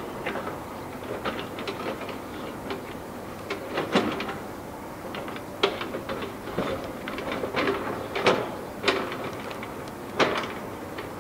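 Boeing 747-8's four General Electric GEnx-2B turbofans at take-off thrust during the take-off roll: a steady rush of jet noise broken by irregular sharp crackles and pops, several of them standing out loud.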